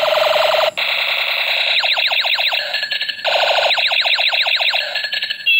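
Electronic sound effects from a battery-powered toy sniper rifle firing: several trigger bursts of buzzy rapid-fire noise, with runs of quick falling 'pew' sweeps, about eight a second, in the middle and later bursts.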